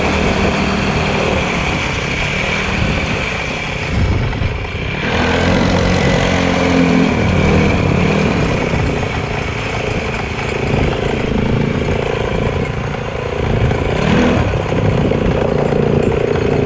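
Motorcycle engine running, its pitch rising and falling as the throttle changes.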